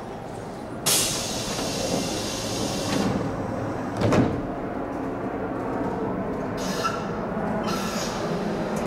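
Osaka Metro 66 series train's sliding doors closing: a sudden hiss about a second in, then the doors thud shut about four seconds in. Two shorter hisses follow near the end.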